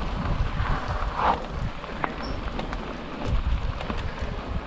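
Mountain bike riding over rough ground: an uneven low rumble with irregular knocks and scattered sharp clicks, and a brief louder rush about a second in.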